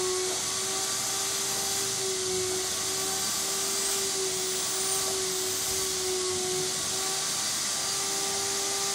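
An electric motor running steadily, with a constant hum under a strong hiss.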